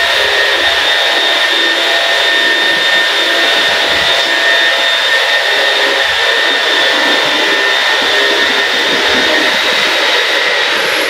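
Steady machine noise: a loud, even whoosh with a thin high whine that holds without change.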